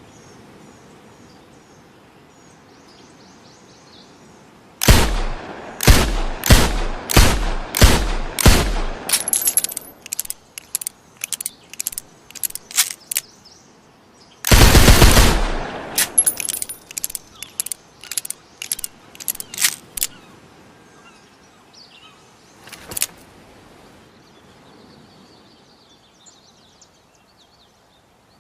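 Revolver gunshot sound effect. After a few seconds of quiet there is a run of about eight loud shots roughly twice a second, then quieter scattered cracks. Near the middle comes one rapid burst of shots lasting about a second, and a lone shot follows later. Faint birds chirp in the background.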